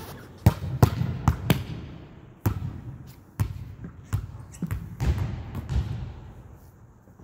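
A volleyball striking a gym wall, the hardwood floor and the player's hands and forearms in about ten sharp, irregularly spaced hits, with scuffing between hits as a seated player slides across the floor.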